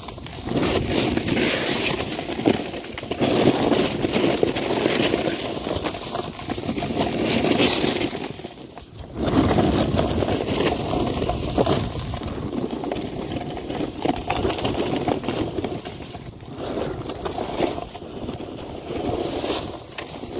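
Snowboard carving down a packed-snow slope: the board's base and edges scrape and hiss over firm snow, swelling and fading with each turn, with a brief lull about nine seconds in.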